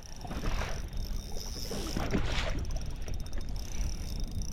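Outdoor noise on a fishing boat: a steady low wind rumble, with two brief rushing swells, about half a second and two seconds in.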